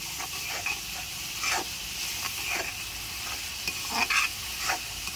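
Onion, ginger-garlic and spice masala sizzling in oil in a kadhai while a metal spoon stirs it, scraping against the pan several times. The masala is being fried through just after the ground spices went in.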